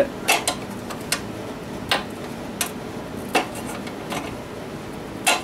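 About eight light clicks and taps, irregularly spaced, from hands working at a small OHV engine's shroud and frame while pulling off a rotten rubber primer fuel line.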